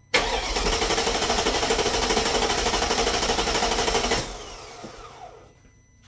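Mercedes CLK 500's M113 V8 being cranked by its starter with a steady pulsing for about four seconds without catching, then winding down with a falling whine. This is a crank-no-start: no fuel pressure is reaching the fuel rail.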